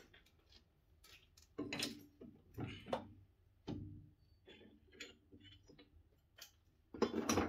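Metal clicks and knocks of a lathe chuck key turning in the chuck and the bored metal bushing being taken out of the jaws: a string of separate light taps and clinks, with no motor running.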